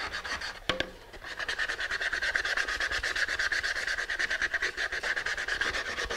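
Sandpaper rubbed by hand along the edge of a thin wooden slide box in quick, even back-and-forth strokes, a steady rasp. It is sanding down a tight fit so the wing will slide freely on the fuselage boom. A short knock comes just before the strokes settle in.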